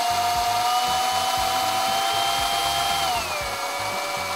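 DC motor of a cable-winding machine running under PWM speed control, a steady whine that rises slightly in pitch and then drops a little after three seconds as the controller slows the motor while the wound length nears its set value.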